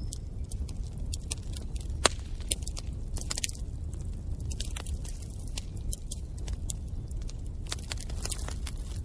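Wood fire crackling in a fireplace: irregular sharp pops and snaps over a low steady rumble from the flames, with one louder pop about two seconds in.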